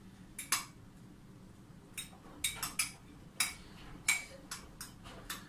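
Spoon clinking against a glass holding the spherification bath: about a dozen light, irregular clinks.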